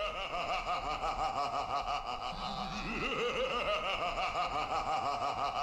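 An evil-laugh sample opening a rap track: a voice laughing in a steady run of quick repeated pulses.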